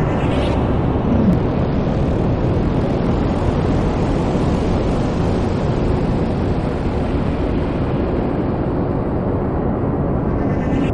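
Noise-music improvisation: a loud, dense, steady low wash of noise like a distant engine rumble, with a brief hissing sweep at the start and another near the end.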